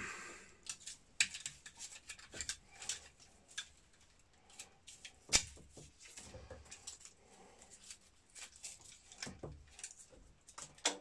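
Irregular small clicks, snips and scrapes of hand tools trimming the ends of Romex electrical cable, with one sharper snap about five seconds in.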